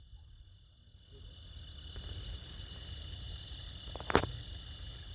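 Crickets chirring steadily at night, fading in over the first second or two, over a low rumble. A single sharp click cuts through about four seconds in.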